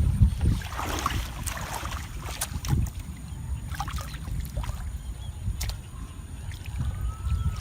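Water sloshing and splashing under a steady low rumble of wind on the microphone, with a few sharp clicks.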